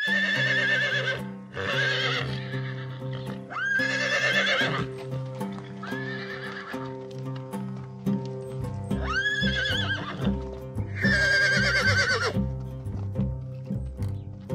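Horses whinnying again and again, about six neighs of a second or so each with a wavering pitch, over clip-clopping hooves and background music.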